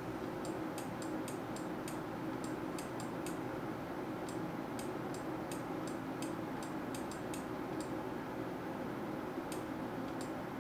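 A pen tip ticking against the writing surface in short, irregular taps as dots and small letters are drawn, over a steady low hum.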